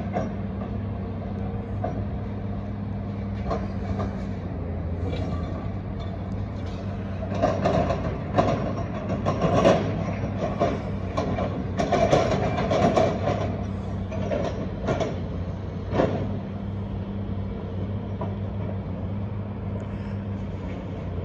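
Demolition heard from across a lot: an excavator's diesel engine runs with a steady drone, while clanks and crashes of the building being torn down come in a cluster through the middle and once more a few seconds later.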